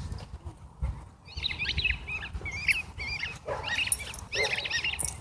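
A dog whining and yelping in a run of short, high-pitched cries that rise and fall, starting about a second in.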